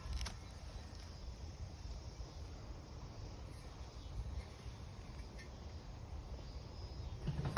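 Quiet outdoor background: a faint, steady high insect chirring over a low rumble.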